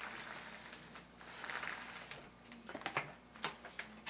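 A paintbrush dragged through wet glaze on a painted floor cloth, making a soft swishing hiss in strokes for about two seconds, followed by a few light clicks and taps as the brush and tools are handled.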